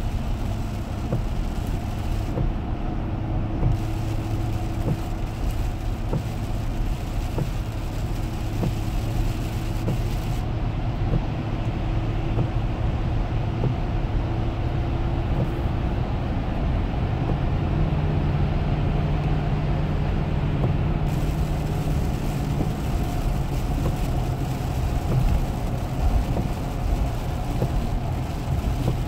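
Inside the cabin of a Lexus LX 470 driving at highway speed on a rain-soaked road: steady road noise from the tyres on wet pavement over the low hum of its V8 engine. The higher hiss of the wet spray drops away for about ten seconds in the middle while the car passes through a covered underpass, then returns.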